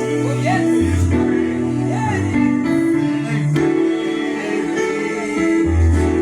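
Live gospel music: held chords over long bass notes that change every second or two, with voices singing short sliding lines and a few sharp drum or cymbal hits.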